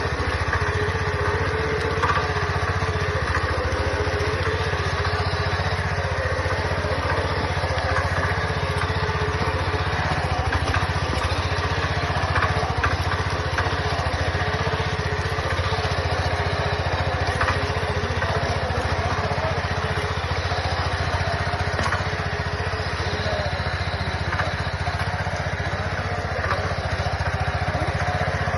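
An engine running steadily, a low even drone without changes in speed.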